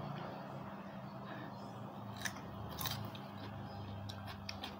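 Close-up eating sounds: a person chewing and biting fried tofu and cucumber, with a couple of sharp crisp clicks about two and three seconds in and a run of small clicks near the end.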